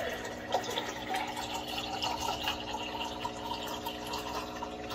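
Thin stream of water from a Waterdrop G3P800 reverse osmosis faucet pouring into a large drinking glass as it fills, over a steady hum from the system's booster pump running under the sink.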